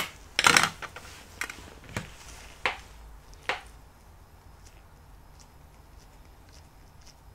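Handling noises on a workbench: a handful of sharp knocks and clicks over the first three and a half seconds, then only faint high ticks.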